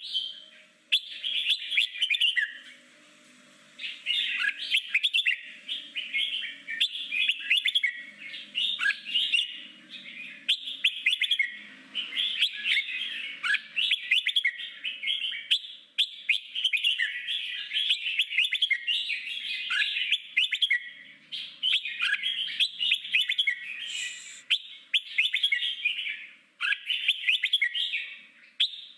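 Red-whiskered bulbul singing its wild-type 'forest voice' song: fast, chattering phrases with short gaps, and a break of about a second roughly three seconds in.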